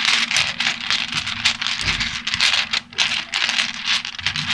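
Small tarot dice rattling and clicking against each other inside a crocheted pouch as a hand rummages through them to pick some out. The clicks are dense and irregular throughout.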